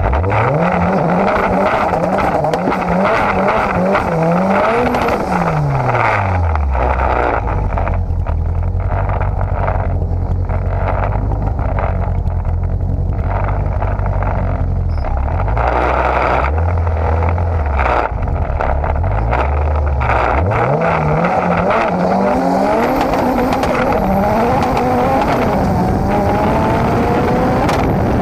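Big-turbo Toyota MR2's turbocharged four-cylinder engine, heard at the engine: revved up and held high for a few seconds, then back to a low idle with two short blips, then revving up again and climbing in pitch near the end.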